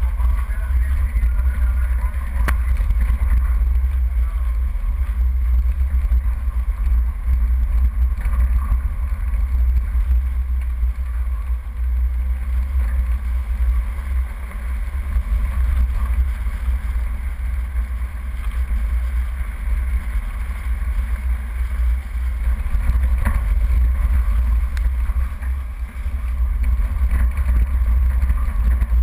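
4x4 off-road vehicle driving along a rough dirt track: a steady low rumble of engine and tyres, with a sharp knock about two seconds in and another near the end from bumps in the track.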